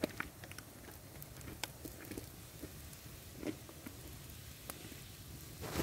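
Scattered light clicks and taps of cookware being handled, a utensil knocking against a pot while instant noodles are stirred, over a low steady background.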